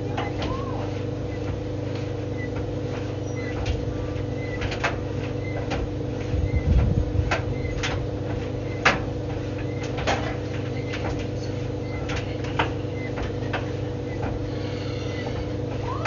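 White Knight tumble dryer running: a steady motor hum with the drum turning, and irregular clicks and knocks from the clothes tumbling inside. A louder low thump about seven seconds in.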